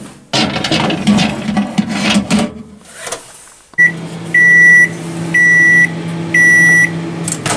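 A pan of pizza clatters and scrapes as it is handled and slid into a Samsung microwave oven. About four seconds in there is a click, and the microwave starts running with a steady hum. Over the hum it gives a short beep and then three longer high beeps about a second apart as its control-panel buttons are pressed.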